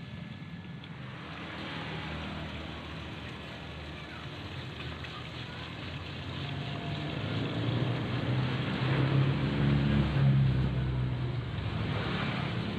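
Electric booster water pump running with a steady hum while it is kept on by its flow switch, with water splashing and pouring into a plastic tub. The splashing gets louder in the second half.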